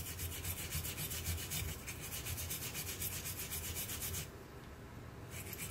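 Small brass wire brush scrubbing the brass head of an old shotgun shell, brass on brass, in quick back-and-forth strokes about five a second. The scrubbing stops for about a second some four seconds in, then starts again.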